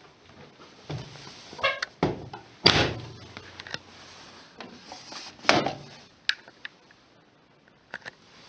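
Several irregular thuds and sharp clicks from a front-loading washing machine being handled, such as its door or detergent drawer being pushed shut. The loudest thud comes nearly three seconds in.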